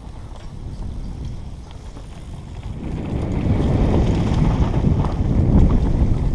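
Wind buffeting the rider-mounted camera's microphone, mixed with the rumble and rattle of a downhill mountain bike rolling fast over a dirt trail. It gets louder about halfway through.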